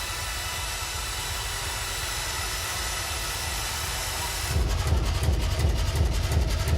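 Live electronic noise music: a dense hissing drone with many steady tones layered through it. About four and a half seconds in, a louder low rumble with a fast, rapid-fire stutter cuts in abruptly and keeps going.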